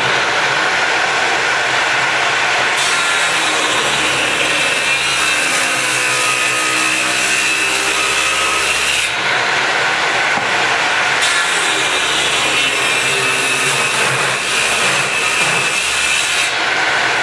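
Table saw running and ripping a wooden board fed on edge along the fence, cutting it down to half-inch thickness. The cutting noise eases off for a couple of seconds about nine seconds in, then picks up again.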